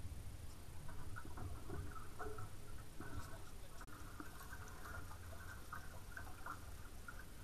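Water lapping and gurgling against the hulls of a small sailing catamaran, a patter of small irregular ticks over a steady low rumble.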